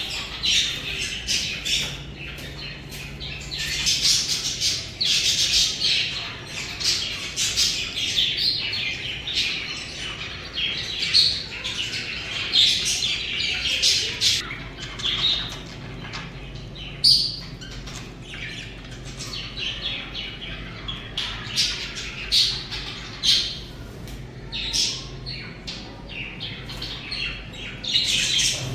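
Budgies (budgerigars) chattering and chirping continuously, several birds at once, with frequent short sharp squawks cutting through.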